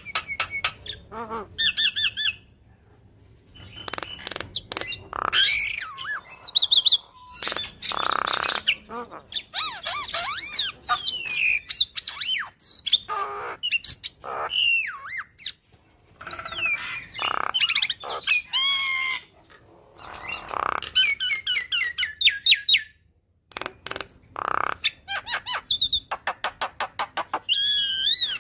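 Javan myna singing a long, varied chattering song with short pauses. Rasping squawks mix with gliding whistled notes, and a fast run of repeated notes comes near the end.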